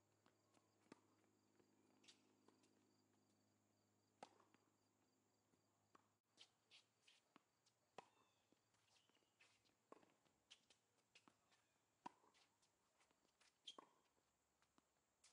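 Faint tennis rally on a hard court: sharp pops of racket strings striking the ball, the strongest about every two seconds, with fainter ball bounces and footfalls between them.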